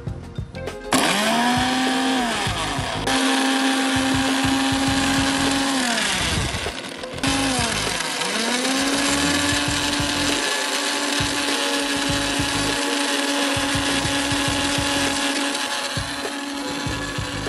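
Countertop electric blender running. It starts about a second in, winds down and spins back up twice, then runs steadily.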